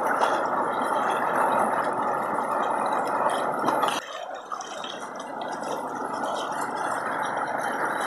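Shallow river water sloshing and splashing around the legs of people wading beside a small boat. It drops quieter about halfway through.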